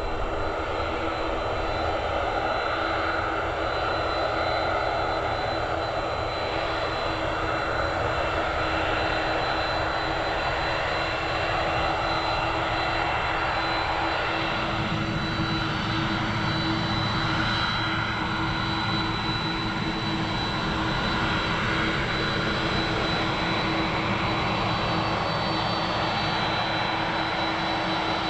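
A Boeing 767-200ER's GE CF6 turbofan engines running at taxi power: a steady rushing hum with a high, steady whine. About halfway through, a deeper rumble comes in and stays.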